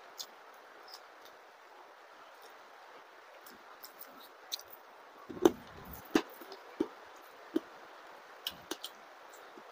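Eating rice and curry by hand: soft wet squishes and sharp clicks of fingers working the food on a plate, coming more often and louder in the second half. Under them runs a steady hiss of light rain.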